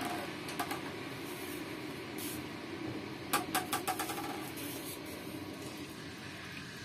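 Spiced palo broth simmering in an aluminium wok, a steady bubbling. There are two sharp clicks about half a second in and a quick run of about six ringing clicks near the middle.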